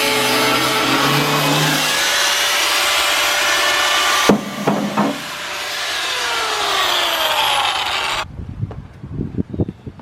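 Angle grinder cutting steel plate, a loud steady grind with a high whine. About four seconds in come a few sharp clanks, then the grinder's whine falls as it spins down, and near the end there are quieter scattered knocks.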